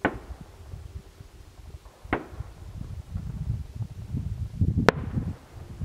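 Three fireworks shells bursting in the distance, each a sharp bang with a short echoing tail: one at the start, one about two seconds in, and the sharpest near the end.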